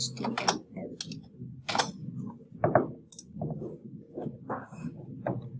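Computer keyboard keystrokes and mouse clicks, a few irregular clicks spread across the moment.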